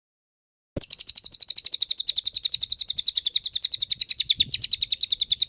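A songbird's fast, even trill of high notes, about ten a second, beginning abruptly about a second in and cutting off suddenly at the end: a recorded rapid-fire "tembakan" song phrase of the kind used to train caged songbirds.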